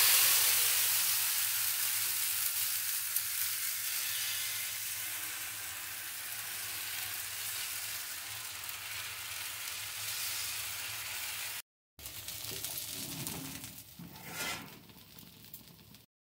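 Thin urad-dal-and-rice batter sizzling in a hot oiled frying pan as a soru chakli crepe cooks, just after the batter has gone into the pan. The sizzle is loudest at the start and dies down slowly over about ten seconds.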